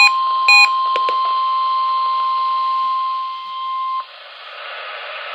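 NOAA Weather Radio's 1050 Hz warning alarm tone, one steady pitch, sounding during a weekly test. Pulsed electronic beeps repeat over it twice at the start, and a click follows about a second in. The tone cuts off about four seconds in, leaving radio hiss before the announcement.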